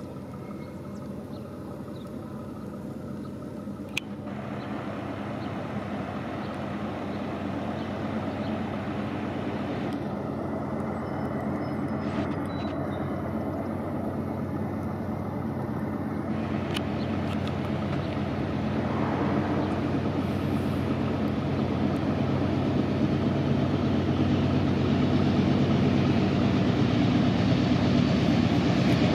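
Norfolk Southern diesel-electric locomotives leading a slow loaded coal train, their engines running with a steady low drone that grows steadily louder as the train approaches.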